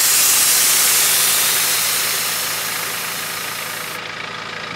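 Airlift air suspension on a BMW E91 318d Touring dumping its air: a loud hiss of air venting from the bags, fading as the car sinks onto its wheels and cutting off about four seconds in. The car's diesel engine idles steadily underneath.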